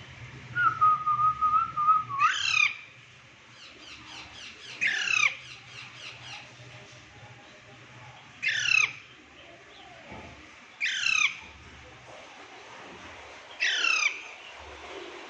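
Pet parrot squawking: five short, harsh calls a few seconds apart, each a quick sweep in pitch. Near the start there is a steady held whistle lasting about a second and a half.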